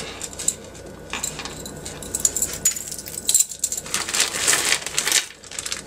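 Metal costume jewelry clinking and jingling as hands rummage through a plastic zip-top bag of it, with the bag rustling. The jingling comes in clusters of small clicks, busiest in the second half.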